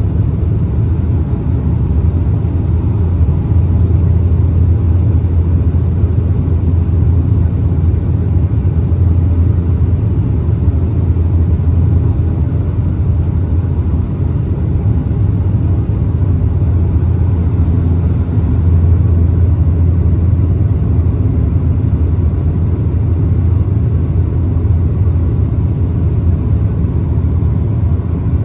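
Steady, loud low drone of a Bombardier Dash 8 Q400's Pratt & Whitney PW150A turboprop and six-bladed propeller, heard inside the passenger cabin beside the propeller in flight.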